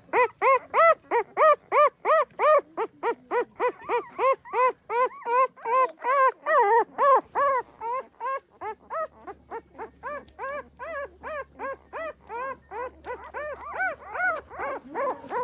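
Puppies crying: a rapid, unbroken run of short, high-pitched whimpering yelps, about three a second, with calls from more than one pup overlapping at times.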